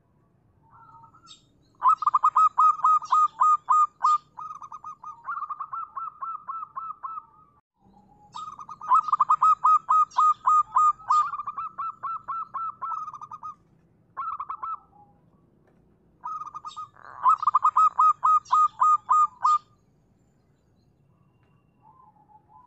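Local zebra dove (perkutut) cooing: rapid trains of pulsed, bubbling notes, several bursts of a few seconds each separated by short pauses.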